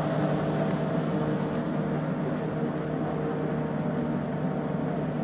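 A machine running with a steady low hum.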